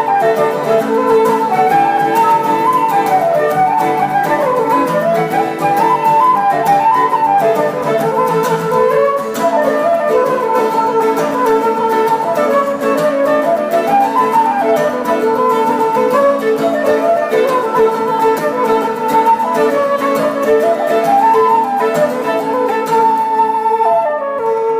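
Instrumental folk music: a flute-like wind instrument plays a melody over a steady held note, and the music ends near the end.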